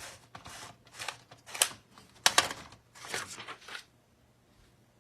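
Plastic clacking and rattling from a LEGO-brick typewriter being worked: an irregular run of short clicks and scrapes with a few sharp louder clacks, stopping a little before the end.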